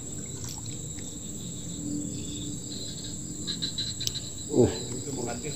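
Insects chirring in a steady high-pitched drone. A brief voice sounds about four and a half seconds in.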